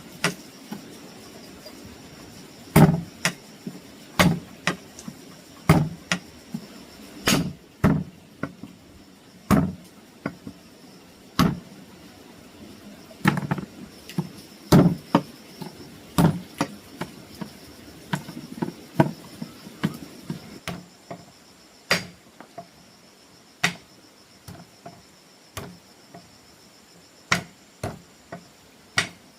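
A series of sharp knocks, irregular at roughly one a second, like chopping or hammering on a solid surface, growing fainter and sparser towards the end. A steady high-pitched insect drone runs underneath.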